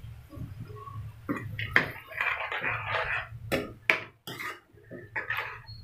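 Metal spoon knocking and scraping in a cooking pan of soybean curry: several sharp knocks, with short stretches of scraping about two seconds in and again near the end, over a low steady hum.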